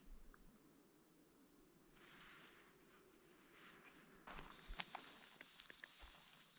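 Hazel grouse decoy whistle blown close by: one long, loud, high whistle with a slight warble, lasting about two seconds from a little past halfway. Near the start there is a faint, thin, higher whistle in short broken pieces.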